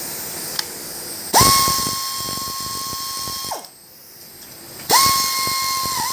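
Pneumatic air ratchet with a 12 mm socket spinning a nut in two bursts of about two seconds each. Each time its air motor spins up quickly to a steady high whine, and the second burst dips briefly in pitch near its end. A steady hiss sounds before the first burst.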